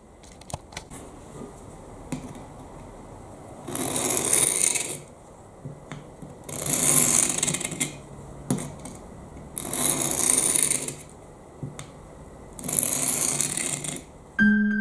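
Four slow strokes of a steel knife blade drawn across the abrasive plate of a Work Sharp field sharpener, each a long rasping scrape of about a second, coming about every three seconds, with a few light clicks between strokes. The knife is being sharpened from a deliberately dulled edge.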